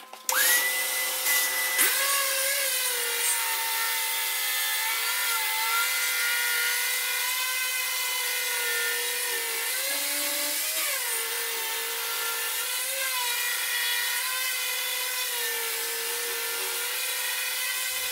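Handheld concrete grinder with a dust-extraction shroud and vacuum, grinding the surface of a concrete slab to prepare it for a calcium chloride moisture test. It starts about a third of a second in and quickly spins up to a steady high whine. Its pitch wavers and dips as the grinder is pressed and moved across the floor.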